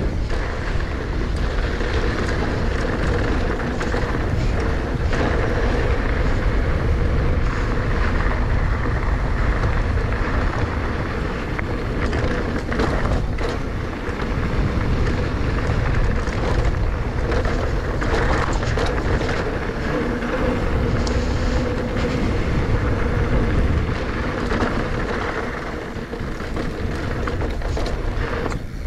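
2019 Giant Trance E+ 2 electric mountain bike rolling fast down a dirt trail: a steady rush of tyre and wind noise with a low rumble, a faint steady hum underneath, and scattered knocks and rattles from the bike over bumps.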